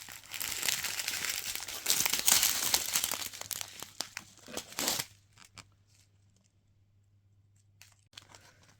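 Small plastic bags of diamond painting drills crinkling as they are handled, with many small clicks. It stops about five seconds in, leaving a few faint rustles near the end.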